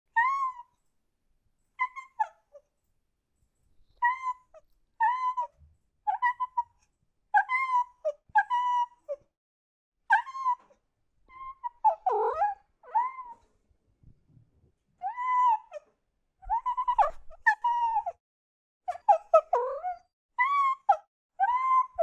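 Domestic cat meowing over and over: some two dozen short meows, each rising then falling in pitch, with silent gaps between. Around the middle and near the end the meows come in quicker, crowded runs, and one sweeps down lower.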